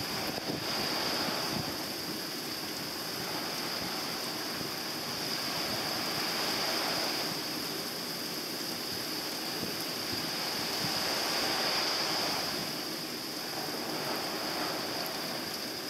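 Surf breaking on a sandy beach, the wash swelling and fading about every five seconds, under a steady hiss of falling rain.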